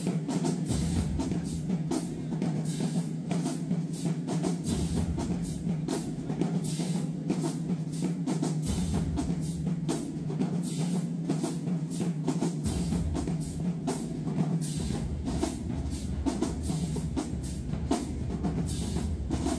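Live band playing with heavy drums and cymbals, the hits coming in a steady, quick rhythm over a held low note.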